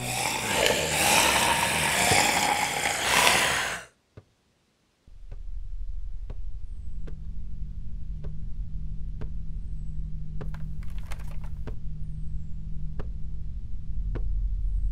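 Film sound design: a loud, dense noise for about four seconds that cuts off abruptly, then a second of silence. After that, a low suspense drone with a steady tick roughly every two-thirds of a second.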